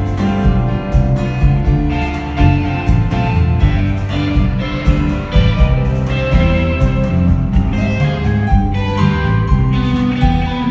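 A rock band playing live at a sound check: electric guitars over bass and drums with a steady beat.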